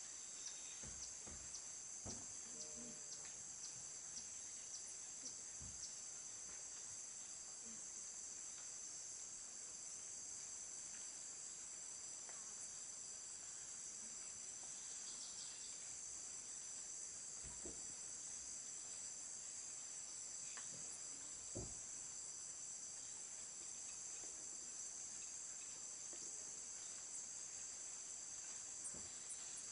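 Steady, high-pitched chorus of rainforest insects, several droning tones held at once, with a few soft low thumps here and there.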